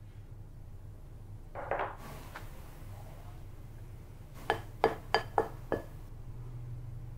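A small glass bowl clinking against the rim of a glass mixing bowl five times in quick succession, each strike ringing briefly, as it is tipped and knocked to empty it into flour.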